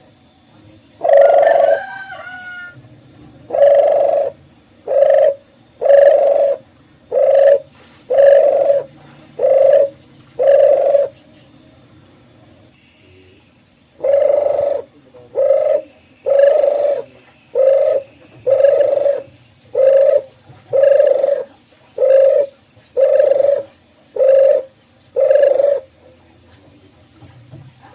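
Dove cooing: a run of low, evenly spaced coos about one a second, a pause of about three seconds, then a second, longer run of coos.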